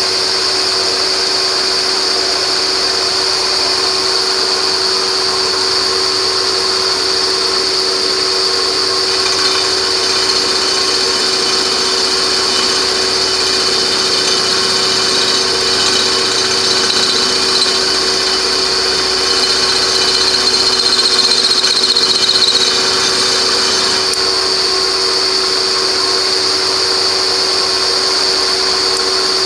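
Milling machine running, its end mill cutting into a broken titanium screw in an alloy wheel barrel: a steady whine with a high, piercing tone over it, briefly a little louder about two-thirds of the way through.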